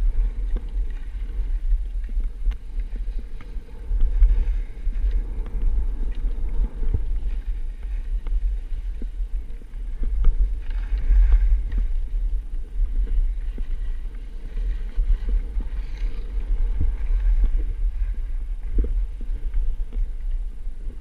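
Wind buffeting the microphone as a skier moves downhill, a rumble that rises and falls throughout, with skis hissing and scraping over groomed snow, loudest about eleven and sixteen seconds in.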